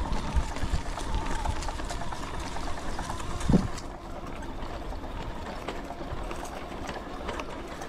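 E-bike with a 750-watt kit riding along a trail: a steady rolling rumble from the tyres, with one sharp knock about three and a half seconds in.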